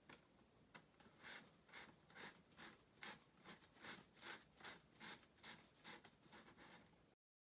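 Shoji paper being wound onto a hand-cranked roll made from a retractable tape-measure winder: a couple of light clicks, then a steady run of short, faint rubbing swishes, about two and a half a second, as the handle turns.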